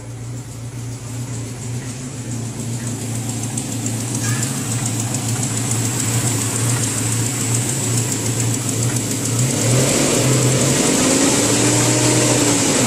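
Kia Sportage 2.0 engine idling, growing louder as the microphone moves from inside the cabin to the open engine bay. Near the end a faint whine rises and falls over the engine sound.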